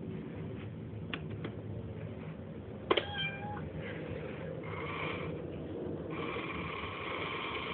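Japanese cat coin bank meowing from its small speaker as its toy cat pops out of the lid: a sharp click about three seconds in with a short call, then longer meows held at a flat, steady pitch.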